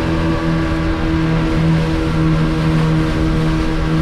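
Twin 40-horsepower outboard motors running steadily at cruising speed, an even drone over the rush and splash of water along the hull.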